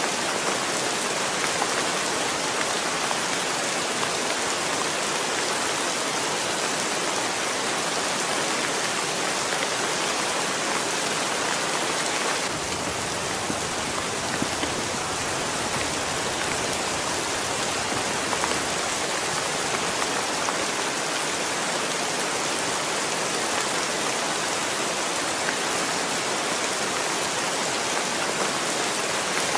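Heavy rain falling steadily, pattering on a concrete ledge and splashing into the puddles on it: an even, unbroken hiss.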